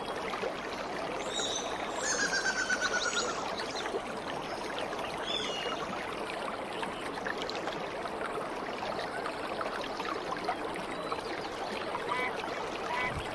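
Steady rushing noise, like running water, with a few brief high chirps in the first half.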